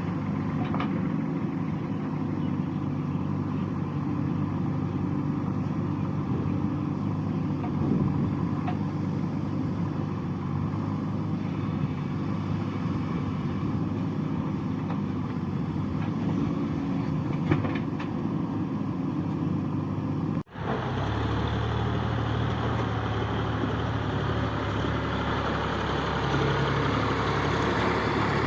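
JCB 3DX backhoe loader's diesel engine running steadily under work. It drops out abruptly for a moment about 20 seconds in, then carries on with a harsher, brighter tone.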